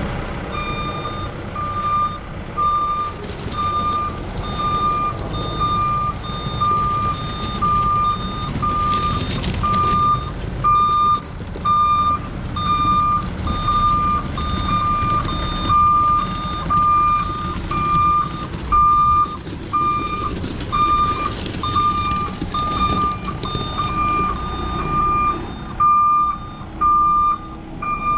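Backup alarm on heavy diesel equipment, beeping evenly at one pitch about one and a half times a second while the machine reverses, over the steady rumble of its diesel engine.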